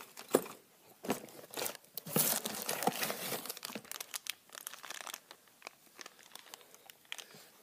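Plastic packaging crinkling and rustling as it is handled and opened, with a few sharp clicks and taps; busiest in the first five seconds, then dying down.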